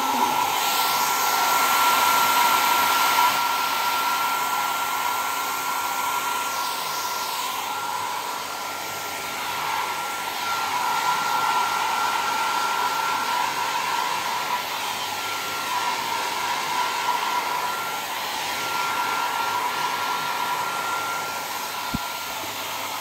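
Handheld hair dryer running on its third, hottest setting while blow-drying hair: a steady rush of air with a high whine over it, its loudness swelling and dipping.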